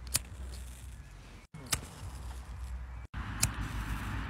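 A handheld lighter being struck three times, about a second and a half apart, each sharp click followed by a soft hiss as a dandelion seed head catches fire. Brief dropouts split the clicks, and a low rumble runs underneath.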